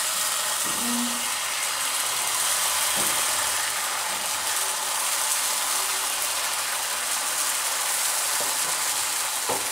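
Dosa batter sizzling as it is spooned into hot ghee in a nonstick frying pan: a steady hiss.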